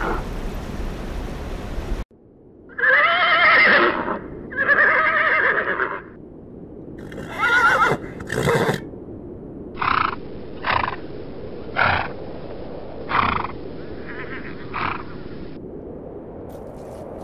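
A gorilla's low vocal sound, cut off abruptly about two seconds in. Then horses whinny: three long, wavering neighs, followed by a run of five or six short calls about a second apart.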